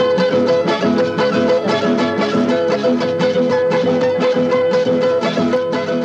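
Andean folk music from Cajamarca, an instrumental passage with a quick, steady beat.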